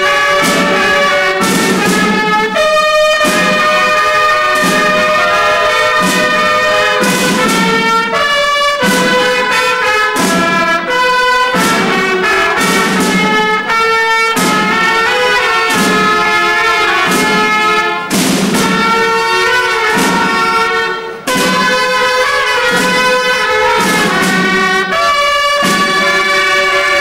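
Several trumpets playing a piece together in harmony, with long held notes.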